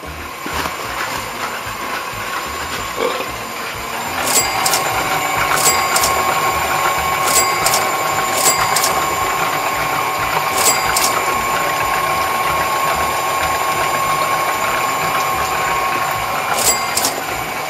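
Stand mixer motor running steadily with a whine, the beater turning a bowl of cookie mixture; it gets louder and the whine stronger about four seconds in.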